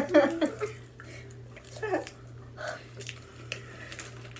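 Brief voices at the start and a short murmur about two seconds in, then small scattered clicks and mouth sounds as people suck on chili-coated lollipops, over a steady low hum.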